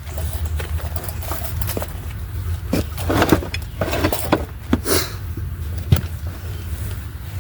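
Tools and metal parts being handled: scattered clanks and knocks, most of them between about three and five seconds in, over a steady low hum.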